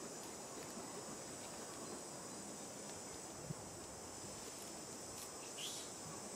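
Steady high insect drone, like crickets or cicadas, over a faint outdoor hiss. A single short knock comes about three and a half seconds in, and a brief high chirp near the end.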